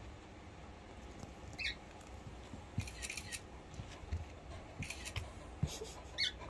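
Two short, high squeaks about four and a half seconds apart, with faint rustles and soft thumps between them as a mixed-breed dog moves about on carpet.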